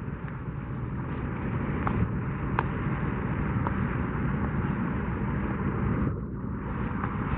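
Steady wind buffeting the microphone, a low rumbling rush, over the wash of surf on the lava rocks below. A few faint clicks are heard.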